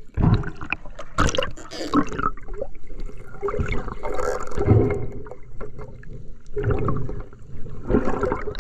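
Muffled water noise heard from under the surface: gurgling and sloshing, with irregular knocks and clicks throughout.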